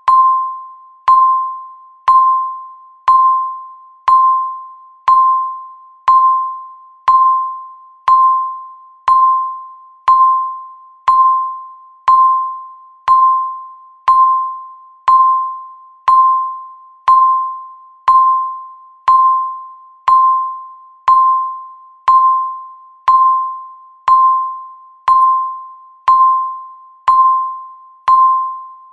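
Countdown timer's tick sound: a short pitched ping once a second, each struck sharply and fading quickly, repeating at an even pace.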